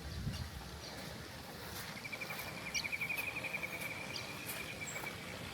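Birds calling in a garden: one long, rapid trill lasting about three seconds, with a few short high chirps scattered around it.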